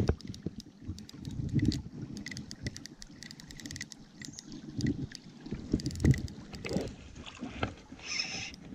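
Spinning reel and rod working against a hooked salmon: fast, irregular clicks and rattles from the reel, mixed with water splashing and low handling bumps.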